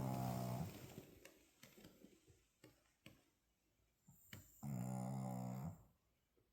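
Snoring, one pitched, droning snore per breath. One snore fades out about half a second in and the next comes about four and a half seconds in, lasting just over a second. Faint small ticks fall between them.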